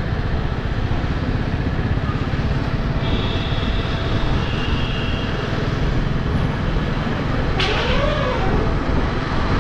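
Motorcycle ride with steady wind rush on the microphone over the engine running, a dense low rumble throughout. A faint high tone sounds for about two seconds from about three seconds in, and a short wavering pitched sound comes near the end.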